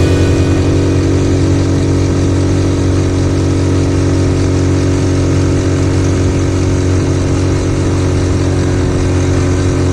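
Honda Super Cub's single-cylinder four-stroke engine, bored up to 75cc, running at a steady speed while riding.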